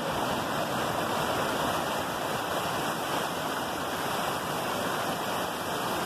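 River rapids rushing over rock ledges: a steady rush of water.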